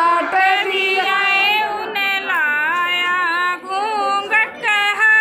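Women singing a Haryanvi folk song without instruments, in long held notes that bend in pitch.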